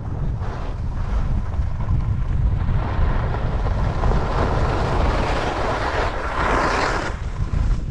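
Wind rushing over a helmet or action-camera microphone during a downhill ski run, with skis hissing and scraping over soft spring snow. The hiss swells a few seconds in and is loudest just before the end.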